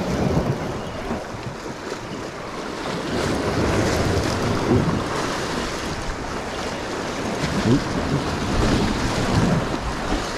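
Sea waves surging and breaking against shoreline rocks, with wind buffeting the microphone in uneven gusts.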